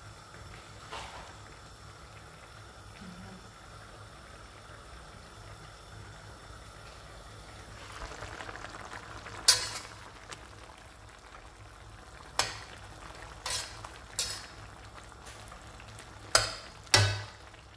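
Green vegetables and sliced mushrooms cooking in a stainless steel pan with a steady low sizzle. In the second half a metal spatula stirs them, knocking sharply against the pan about six times.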